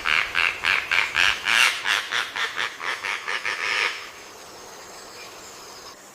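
A bird giving a rapid series of harsh, honking calls, about four a second, that stops about four seconds in, leaving a quieter background.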